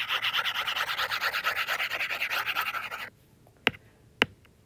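Stylus tip scrubbing back and forth across a tablet's glass screen with a fast, even rhythm for about three seconds while erasing handwriting, then two sharp taps of the stylus on the glass.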